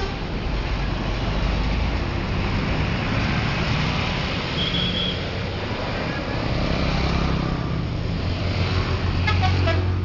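Road traffic passing a roadside spot, a steady rush of engine rumble and tyre noise from buses and other vehicles, with the rumble swelling in the last couple of seconds as a heavy vehicle passes. A short multi-tone bus horn toots near the end.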